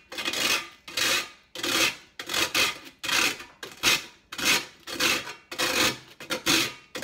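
Dried toast being grated on a metal box grater, rasping in a steady rhythm of strokes a little under two a second as the bread is rubbed up and down against the grater's holes.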